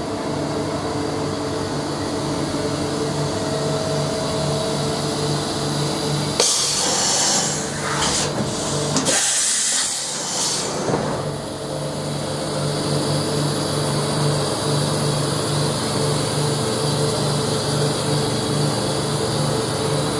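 Mazak Nexus HCN 5000 horizontal machining center running: a steady hum with a low tone that pulses about twice a second. About six seconds in, a loud hiss comes in and lasts around four seconds before dying away.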